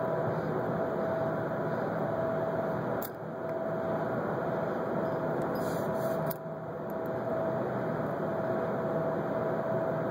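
Steady hiss of a lighter flame held to a pipe bowl while a pipe is relit, broken by a click and a short dip about three seconds in and again about six seconds in. The tobacco is too wet and keeps going out.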